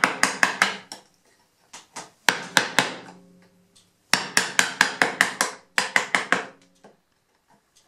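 Wooden mallet striking a 6 mm bench chisel to chop a mortise in a wooden frame member: runs of sharp knocks at about four or five a second, in three bursts with short pauses, the longest near the end.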